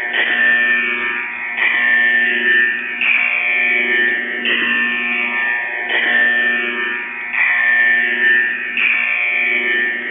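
Looped musical channel-marker transmission on the 6911 kHz shortwave frequency, heard through a shortwave receiver. A falling tone sweep repeats about every second and a half over several steady tones, in the narrow, buzzy sound band of HF radio.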